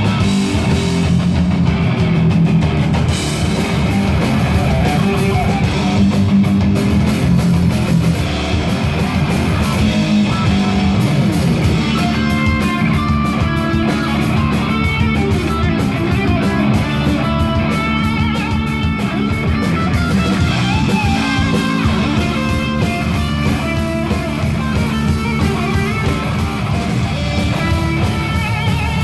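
Rock band playing live and loud: electric guitar over bass guitar and a drum kit, without a break.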